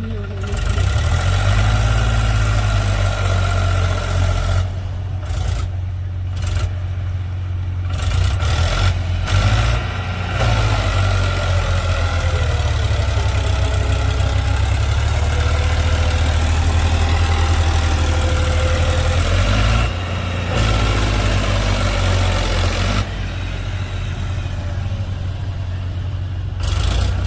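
Heavy diesel machinery engine running, rising and falling in pitch as it revs under load. The sound changes abruptly several times.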